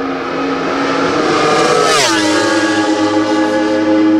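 MotoGP racing motorcycle passing at full speed on the main straight: the engine note climbs in pitch, then drops sharply as the bike goes by about two seconds in, and settles into a steady lower note.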